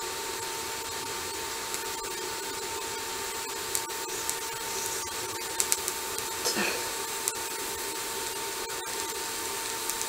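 TIG welding arc burning steadily: a constant hiss with a steady electrical hum, broken by a few sharp crackles and pops in the middle, as filler rod is fed into the joint on thin, painted steel tubing.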